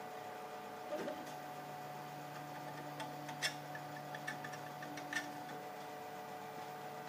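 Prusa i3-style RepRap 3D printer running: its stepper motors whine in steady tones that drop in pitch about a second in and jump back up near the end as the moves change, with a few sharp ticks in between.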